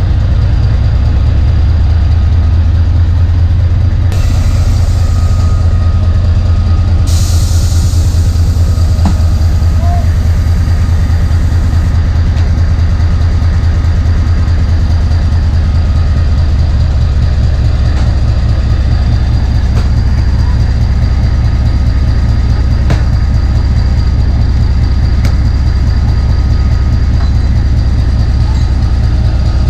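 Narrow gauge train heard from on board: a steady, loud low rumble from the ZDM4A diesel locomotive and coaches, with a hiss for a few seconds near the start and a few faint clicks.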